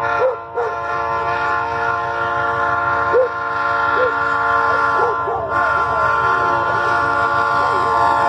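Diesel locomotive air horn of a GE C30M-3 blowing one long, steady blast as the train approaches. Dogs bark over it several times.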